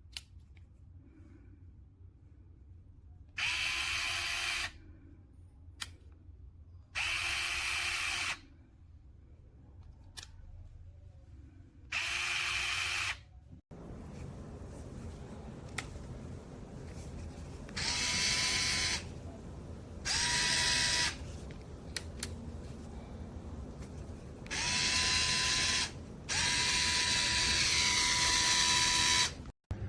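HOTO 3.6 V cordless electric screwdriver motor spinning up in short bursts, seven times, each about a second long and the last about three seconds.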